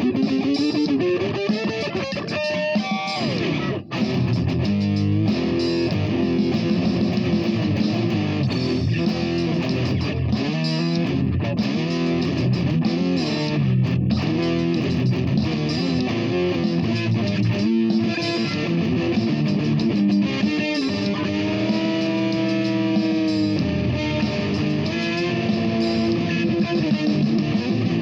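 Electric guitar played freestyle: continuous lead lines with bent, sliding notes, and a brief drop in volume about four seconds in.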